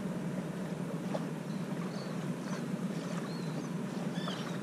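Yacht underway on open water: a steady rush of wind and water with a low hum under it, and a few faint high chirps about three and four seconds in.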